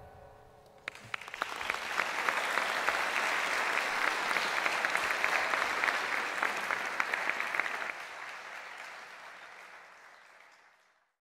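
Applause as the band's final note dies away: clapping starts about a second in, holds steady, then thins and fades out near the end.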